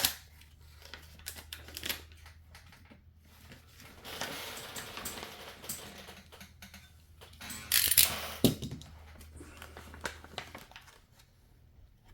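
Packaging being cut and torn open by hand, with clicks and rustling. A longer stretch of ripping and crinkling starts about four seconds in, and the loudest rustle comes a little after the middle.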